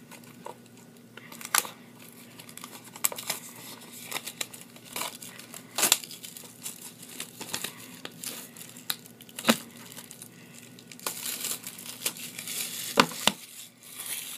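Plastic shrink wrap being peeled off a Blu-ray case, crinkling and tearing in irregular crackles with a few sharp snaps, most continuous near the end.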